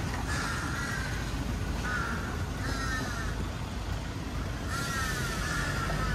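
A bird calling about four times, each a short arching call, over a steady hum of road traffic.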